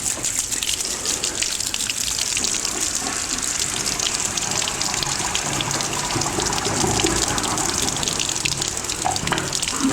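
Toilet being flushed, water gushing steadily through the plumbing.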